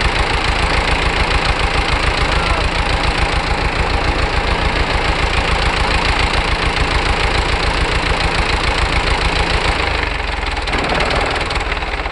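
Long 900 tractor's four-cylinder diesel engine idling with an even, rapid low pulse; the idle drops and changes about ten seconds in.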